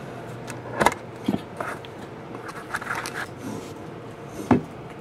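A round metal trading-card tin being opened and handled: light scraping and rustling, with a few sharp clicks and knocks of the lid and tin, the loudest near the end.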